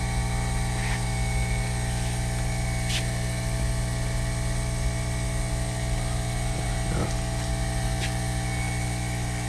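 Steady whirring hum, like a small motor running, unchanged throughout, with a few faint light clicks.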